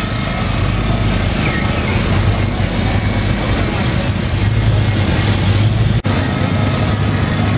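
Steady low rumble of an engine running, with people talking in the background. The sound drops out for an instant about six seconds in.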